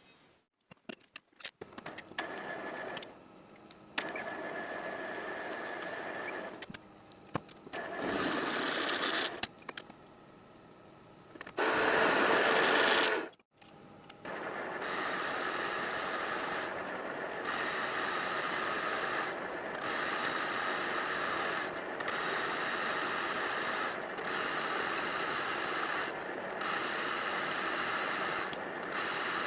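Manual metalworking machine tool running with a gear-driven whine while machining steel. It comes in several short clips with sudden changes in level, then settles into a steady run from about halfway, with brief dips every couple of seconds.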